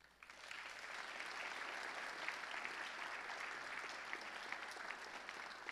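Congregation applauding, a steady patter of many hands clapping that gradually fades toward the end.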